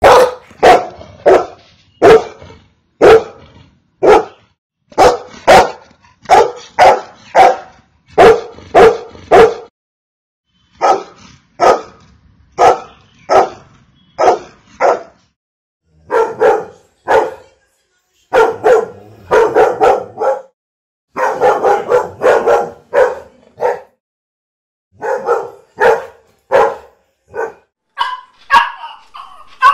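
Golden retriever barking, loud short barks in quick runs of two to four, with a few short pauses between runs.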